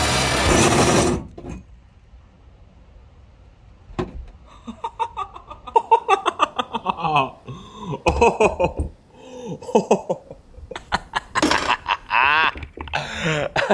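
Cordless drill with a hole saw cutting through the van's sheet-metal roof: a loud steady grinding run that stops about a second in, then after a pause a series of short bursts of pitched whining that slides up and down as the saw bites through the metal, until the disc comes free.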